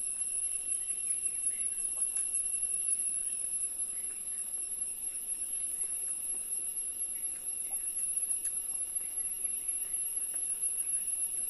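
Steady high-pitched drone of insects in the trees, one unbroken ringing tone with overtones, with a few faint clicks over it.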